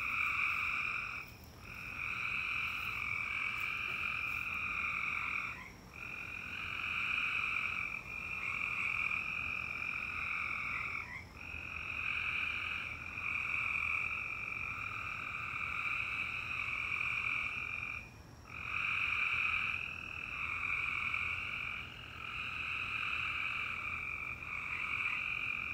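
A chorus of calling frogs, a dense steady trilling that drops out briefly about four times.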